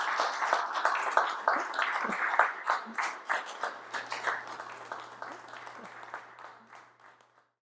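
Audience applauding, the clapping fading out toward the end.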